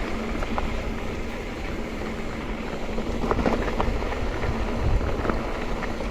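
Mountain bike riding down a dirt trail: a steady rumble of tyres and wind on the camera, with a few sharp knocks and rattles, about three seconds in and again around five seconds.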